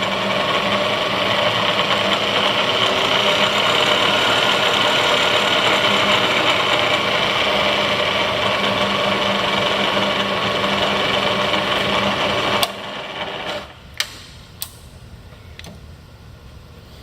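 Bridgeport 1.5 HP variable-speed milling head running with its spindle turning and a little gear chatter from the head's gearing, which is not bad. Near the end the motor is switched off and the running sound drops away suddenly, followed by a couple of sharp clicks.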